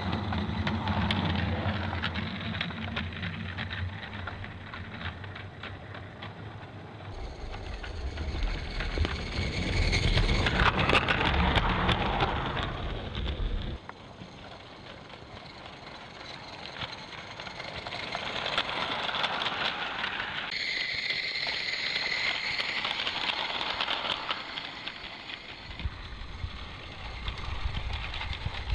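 Live-steam 7/8-inch scale model locomotive, a modified Accucraft Ruby, running with a train of loaded log cars: its steam exhaust and the clicking of its wheels on the track, louder as it draws near and fainter as it moves away.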